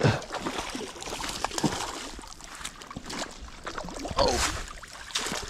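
A sharp knock, then scattered knocks and clicks of handling over a steady wash of water noise.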